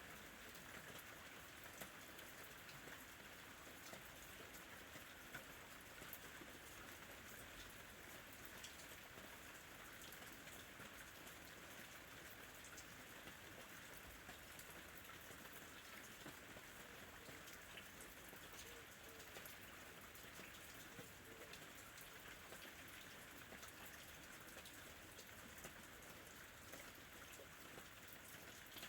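Steady rain falling, a soft even hiss with many small drop patters, played as a sleep ambience track.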